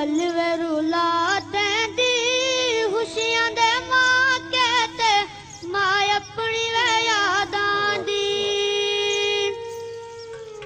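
Background music: a slow sung melody over a sustained drone.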